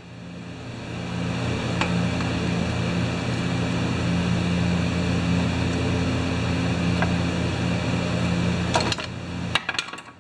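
A steady motor hum builds up over about the first second, holds, and drops away shortly before the end, with a few light clicks over it.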